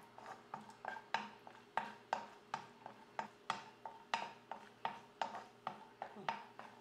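Wooden spatula knocking and scraping against a speckled nonstick pan while stirring cashew pieces frying in a little ghee, about three light knocks a second.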